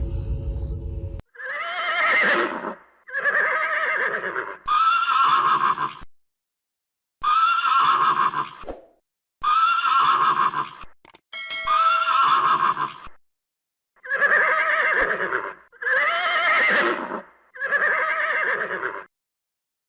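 Horse whinnying, about nine calls in a row, each around a second and a half long with a pitch that falls off. The calls are cut off sharply with short silences between, with a burst of music ending about a second in.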